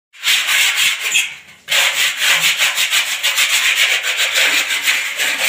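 A hand tool rubbed quickly back and forth against a plastered ceiling, scraping or sanding down the surface, with a short break about a second and a half in.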